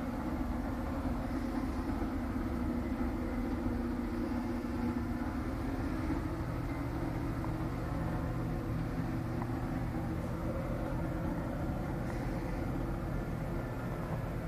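A steady low mechanical hum from running machinery, with no breaks. Its lower tone grows stronger about halfway through.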